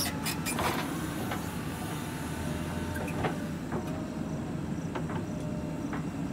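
JCB 3DX backhoe loader's diesel engine running steadily, with a quick cluster of sharp knocks about the first second and a few single knocks later.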